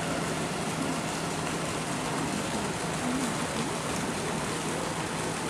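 Steady rushing background noise with faint, distant crowd voices murmuring through it.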